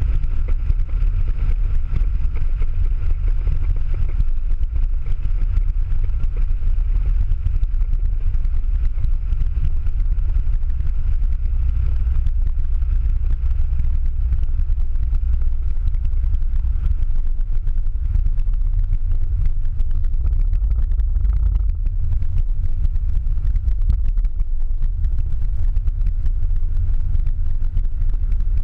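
Ford Mustang Boss 302's V8 and road noise heard from inside the cabin while lapping a wet track: a loud, steady low rumble.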